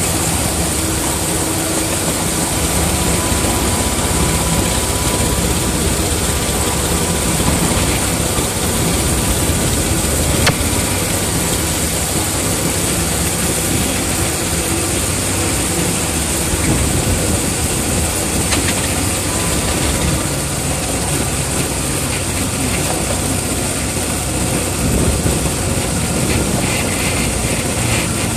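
Engine of a miniature-railway locomotive built as a Class 31 running steadily, heard from its cab, with a steady high hiss over it.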